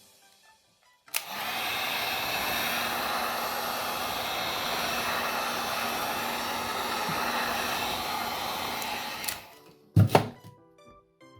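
Heat gun blowing hot air steadily for about eight seconds, warming the phone's back-cover adhesive so it will bond again. It starts about a second in and cuts off suddenly, followed by a couple of sharp knocks.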